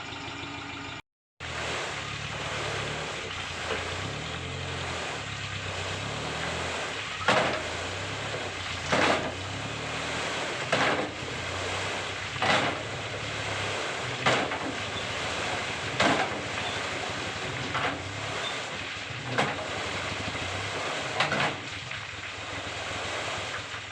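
Komatsu PC75UU compact excavator's diesel engine running under shifting load while it works. From about a third of the way in, a sharp loud knock or clank repeats about every two seconds, nine times. The sound cuts out for a moment just after the start.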